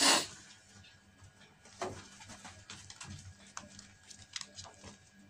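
Persian and Himalayan kittens play-fighting on a wooden floor: scattered light taps and scuffles of paws and claws, with a short, loud rush of noise at the very start and a smaller one about two seconds in.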